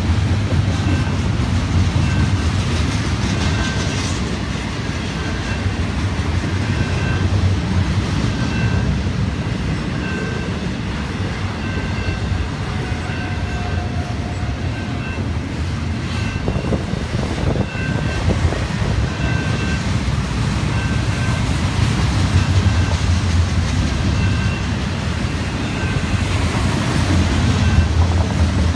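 Double-stack intermodal freight train rolling past at close range: a steady rumble of steel wheels on the rail with clickety-clack over the joints. The level-crossing bell rings over and over.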